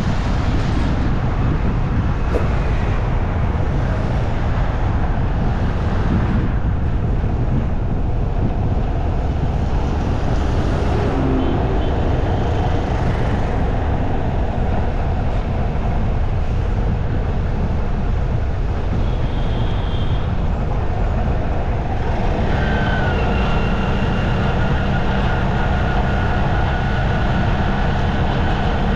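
Continuous road and traffic noise from a bike ride through city streets: a steady rumble, heaviest in the low end. A steady pitched hum joins about 22 seconds in.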